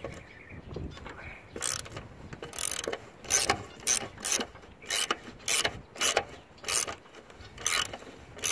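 Ratchet on an extension with a 1/2-inch socket clicking in short bursts, about two a second, as it backs out a lawn mower engine's mounting bolt through the deck. The bursts start a little under two seconds in.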